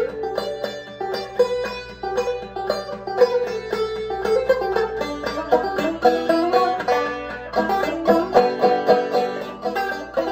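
Five-string banjo played clawhammer style: a steady, continuous run of quick plucked notes in an old-time tune.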